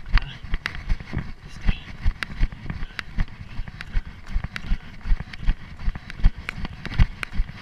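A runner's footsteps on dry leaf litter and forest ground, about three strides a second. Each footfall comes through as a thud on the chest-mounted camera.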